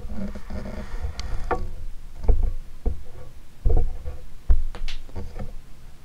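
Handling noise from the camera being moved and reframed: irregular low thumps and knocks with a few sharp clicks.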